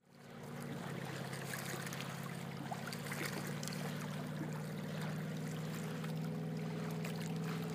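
A steady low engine hum, fading in at the start, over small splashes and water lapping.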